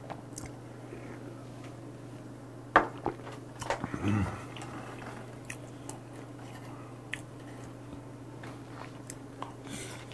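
Quiet eating sounds: metal chopsticks clicking against dishes and soft chewing. There is a sharp tap about three seconds in and a short low exhale about a second later.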